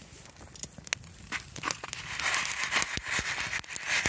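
Campfire crackling with many sharp pops, and the foil over a pan of popcorn kernels and butter crinkling as it is held in the flames with tongs. A steady hiss sets in about halfway through.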